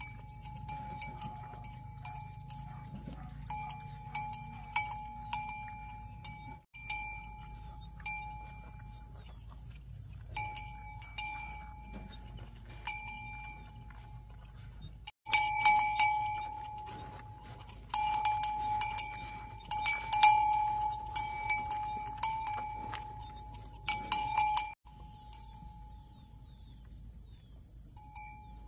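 Cowbell clanking irregularly, with single strokes and quick runs of strokes, louder and busier from about halfway through to near the end.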